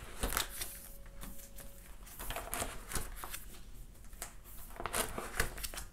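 Photocard binder pages and cards being handled: an irregular run of short plastic-sleeve rustles and soft clicks as pages are turned and cards shown.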